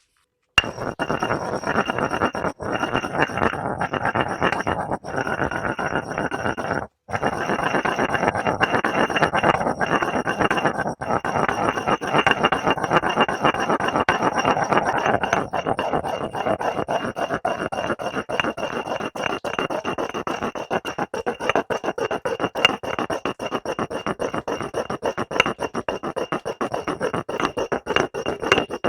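Hair gel being stirred and worked into slime with a utensil in a container: continuous crackly scraping and squelching with light clinks, stopping briefly about seven seconds in.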